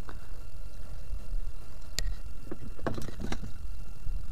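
Handling noise while a small climbing perch is unhooked by hand and put into a plastic jerry can: a steady low rumble on the microphone with a few sharp clicks and taps, one about two seconds in and two more about a second later.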